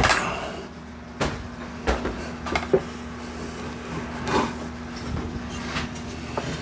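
Handling noises of a Metabo miter saw being carried over and set in place: a scrape at the start, then several separate knocks and thuds.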